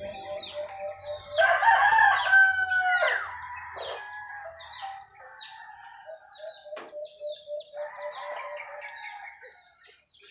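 A rooster crows loudly about a second and a half in. Small birds keep up a rapid series of short, high, falling chirps throughout, and a fainter crow comes about eight seconds in.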